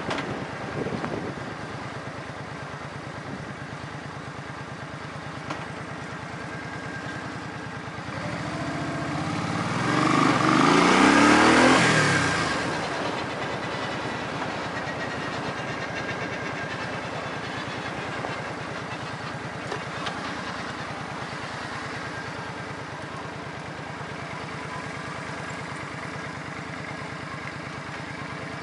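An engine runs steadily throughout. A louder engine passes by between about eight and thirteen seconds in, swelling and then fading with its pitch falling as it goes.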